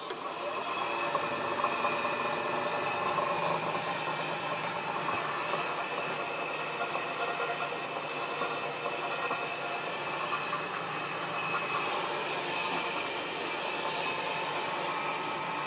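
Vertical milling machine running, its end mill cutting the end of a steel bar clamped in a milling vise to square it up: a steady machining noise with a high whine, sharper and hissier from about twelve seconds in.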